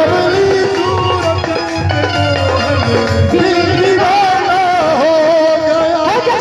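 Loud Indian devotional folk music for Holi: a wavering melody line over a steady hand-drum beat.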